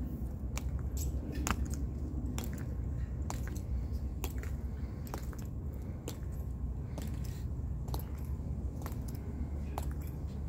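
Metal-tapped dress shoes of a marching Tomb Guard striking the stone walkway in slow, measured steps: a sharp click about once a second, over a steady low rumble.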